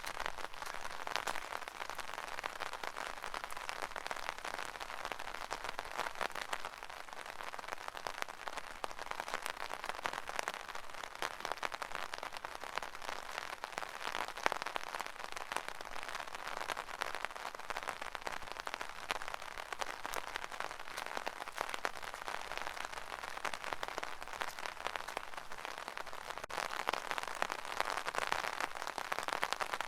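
Steady rain falling on an umbrella: a dense, even hiss of drops with many small sharp ticks of individual drops, swelling slightly near the end.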